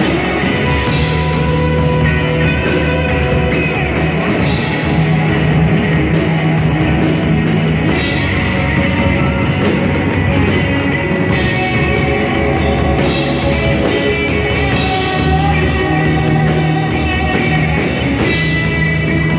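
Ibanez electric guitar with DiMarzio and Seymour Duncan pickups played through an amplifier in a full rock-style band, with continuous loud music and a steady beat.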